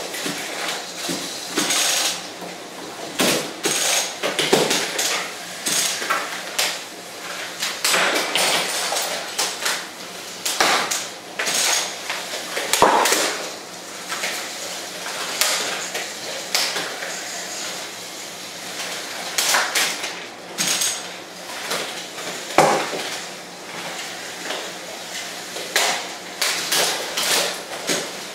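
LEGO combat robots fighting with spinning weapons: irregular hard plastic clattering and cracks as the spinners strike each other, with several sharper, louder hits along the way.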